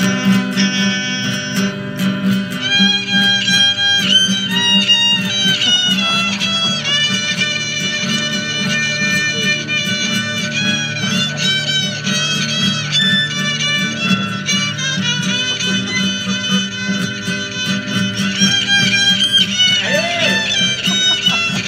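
Live folk-style music from a homemade one-string bowed stick fiddle playing a wavering, sliding melody over a homemade wooden box guitar.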